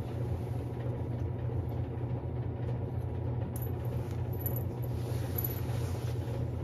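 Steady low mechanical hum of a running space heater's fan, with a light click about halfway through.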